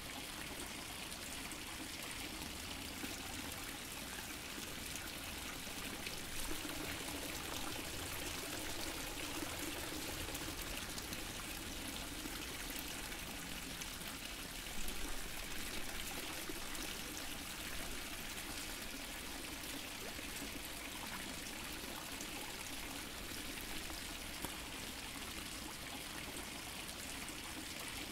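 Fountain water splashing and trickling steadily, with a brief louder splash about halfway through.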